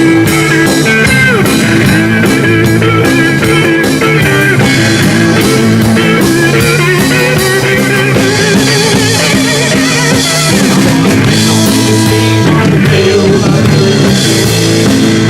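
Live rock band playing an instrumental break without vocals: electric guitar with bending notes over drum kit and a steady low end.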